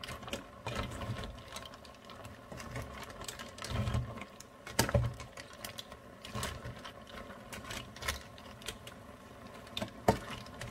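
Cooked mussels being stirred in a stainless steel pot: their shells clatter irregularly against each other and the pot, with a few heavier knocks. A faint steady hum runs underneath.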